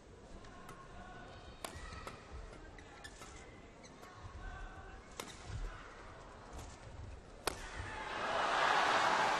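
Badminton rally: sharp racket strikes on the shuttlecock every second or so, with shoe squeaks on the court between them. From about eight seconds in, the crowd breaks into loud cheering as the rally ends with a shot just long.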